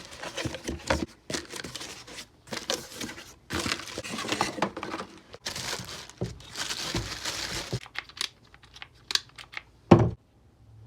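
Irregular crinkling and rustling in uneven bursts, then a few scattered clicks and one sharp knock near the end.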